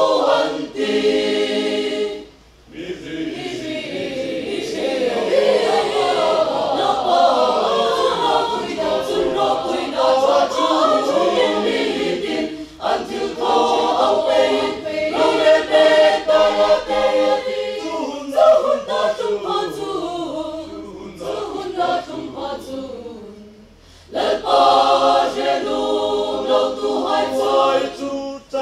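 Mixed choir of men and women singing together in parts. It breaks off briefly between phrases about two seconds in, and again a few seconds before the end.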